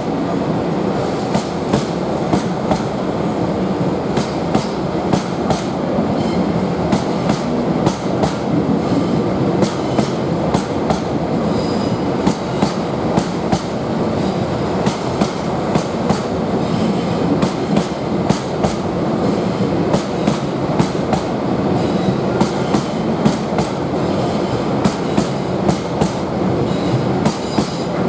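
Loaded bogie stone wagons of a heavy aggregate train rolling past, their wheels clacking over rail joints in a steady rhythm of about one or two clacks a second over a continuous rumble.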